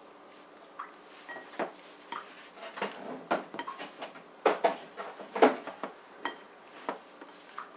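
Dough being kneaded by hand in a china bowl: a string of irregular knocks and clinks as the bowl is pushed about on the counter, loudest about halfway through.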